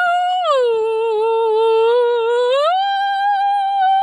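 A young woman singing loud, long held notes as a mock performance. A high wailing note drops to a lower one about half a second in, then slides back up and holds near the end.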